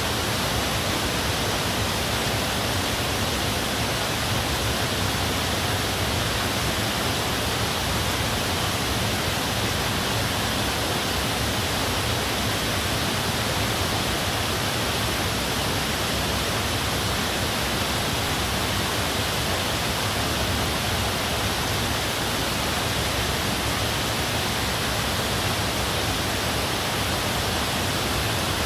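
Steady, even rush of falling water, with no change throughout: water spilling from a cave's overhang into a pool.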